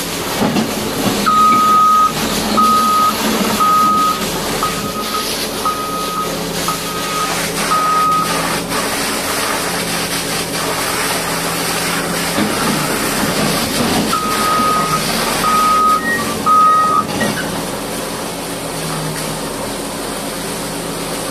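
Heavy-equipment reversing alarm beeping at a steady pitch about once a second, seven beeps, then three more after a pause, over a diesel engine running.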